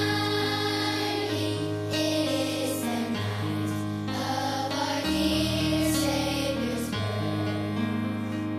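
A choir singing a slow Christmas piece with instrumental accompaniment. The chords are held, and the bass note changes every second or two.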